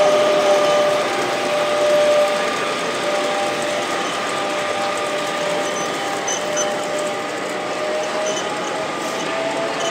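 Gauge 1 (1:32) model locomotives running along the track: a steady mechanical whine of a few tones from the drive, drifting slightly higher near the end, over a constant background hiss.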